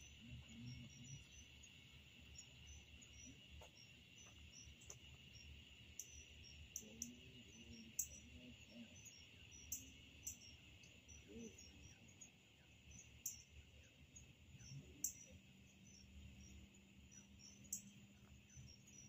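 Faint, steady chorus of crickets, with a sharp click every few seconds.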